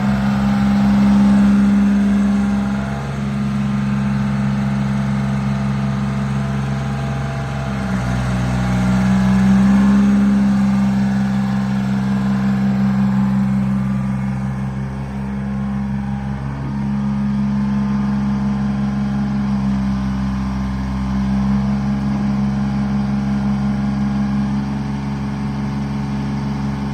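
Engine of an American Excavator Model No. 25 running steadily, its pitch and load shifting a few times as the machine is worked.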